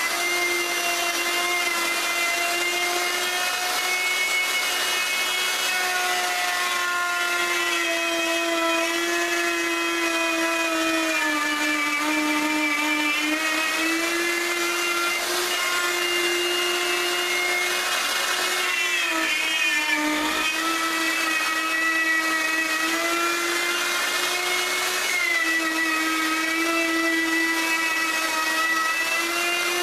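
Electric router running steadily with a high whine, its pitch dipping slightly now and then as it cuts solid maple edging.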